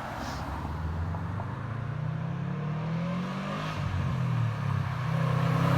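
2013 Subaru WRX's turbocharged flat-four running through a J2 cat-back exhaust, driving toward the microphone. The engine note rises and falls in pitch and grows louder near the end. The car has an exhaust leak that the owner says colours the sound.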